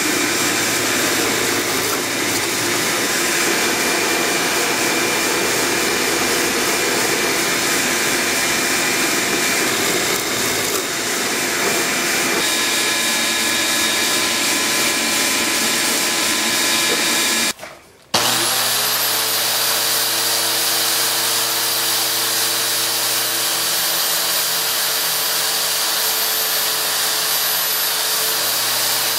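A woodworking power tool running steadily with a loud, even whine and noise. About two-thirds of the way through it cuts out for half a second, then a motor starts again and runs on with a steady hum.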